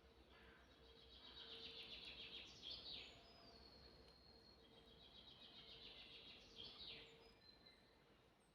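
A songbird singing faintly, two phrases a couple of seconds apart. Each phrase is a fast trill of high notes that ends in a quick falling flourish.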